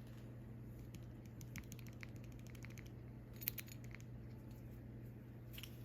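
Faint light clicks and taps of small objects being handled, with one sharper tick about three and a half seconds in, over a steady low hum.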